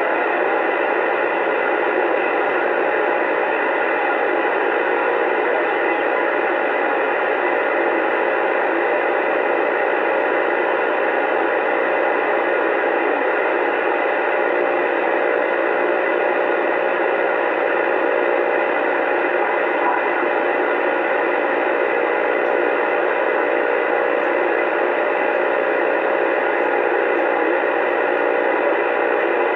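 Uniden Bearcat 980 CB radio receiving steady static on AM channel 28, an open channel with no one transmitting. The hiss is even and unbroken throughout.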